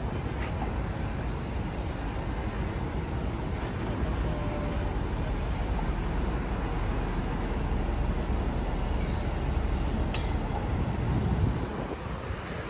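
City street traffic noise: a steady rumble of passing vehicles, with two brief sharp clicks, one about half a second in and one about ten seconds in.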